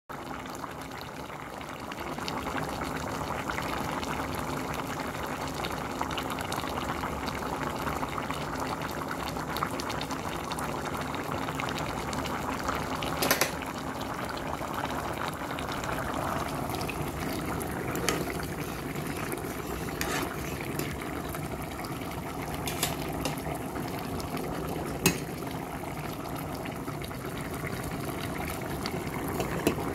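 Pot of green beans and potatoes at a boil: a steady bubbling, with a few short sharp clicks scattered through.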